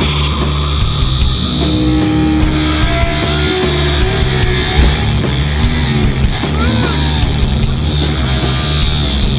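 Rock music with guitar and a steady, driving beat.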